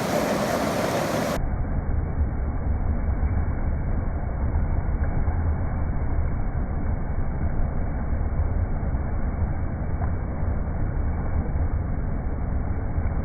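Rushing river water, a steady noise that is bright for about the first second and a half and then turns into a deep, muffled rumble for the rest, as the audio is slowed down with the picture.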